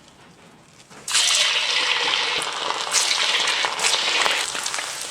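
Pork-and-tofu meatballs dropped into hot oil: a sudden loud sizzle about a second in, with crackling, slowly easing off as they fry.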